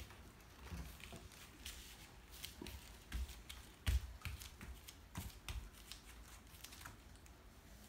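Faint scattered taps and clicks with a few soft low thumps, the loudest about four seconds in: a toddler letting go of a wire puppy pen and stepping barefoot across foam floor mats.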